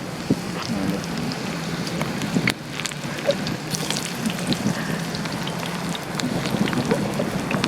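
Chicken frying in hot oil: a steady sizzle with many small pops and crackles.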